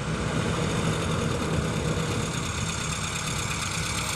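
1965 Volkswagen Beetle's freshly rebuilt 1641cc air-cooled flat-four engine running steadily as the car drives slowly forward.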